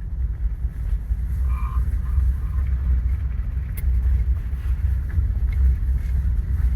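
A 2012 Toyota Sienna minivan driving through a right turn: a steady low rumble of engine and road noise, with a single light click about four seconds in.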